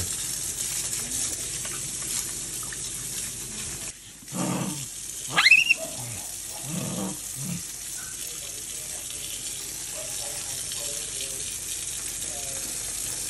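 Kitchen faucet running steadily into a sink, briefly cut off about four seconds in. About five and a half seconds in, a capuchin monkey gives one short squeal sharply rising in pitch, the loudest sound, with a few short low sounds just before and after it.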